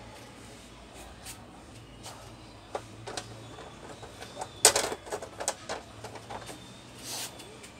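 Hands handling an LED TV's backlight diffuser sheets and frame during reassembly, making a series of light clicks and taps. The sharpest knock comes about four and a half seconds in, and a brief rustle follows near the end.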